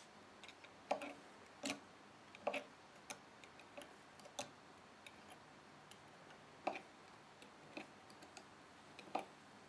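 Metal knitting tool clicking against the metal pegs of a wooden knitting loom while stitches are knitted: faint, irregular clicks about one or two a second.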